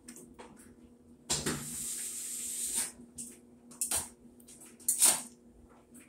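Hands working on a top-load washing machine: a scraping rub of about a second and a half, then a few sharp knocks and clacks of its panels and parts, the loudest about five seconds in.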